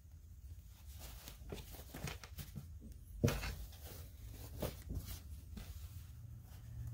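Rustling and handling noises as the cloth of a small toy tent is handled by hand: an uneven run of soft rustles and light clicks, with one sharper, louder rustle a little after three seconds in.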